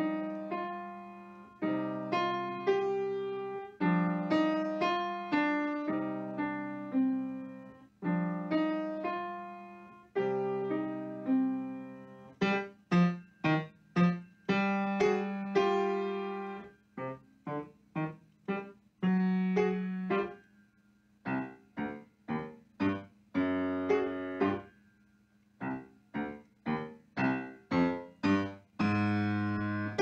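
Grand piano played solo: an easy beginner's piece, with smoothly joined phrases at first, then from about twelve seconds in short detached notes and chords in quick groups, with brief silences between them.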